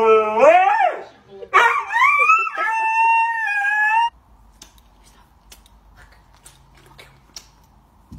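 Husky howling and yowling in two drawn-out calls that bend up and down in pitch, the first ending about a second in and the second, higher one cutting off abruptly about four seconds in. Only faint ticks follow.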